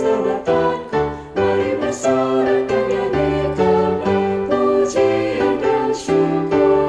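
Mixed choir singing a hymn in Indonesian over keyboard accompaniment, sustained chords moving from note to note.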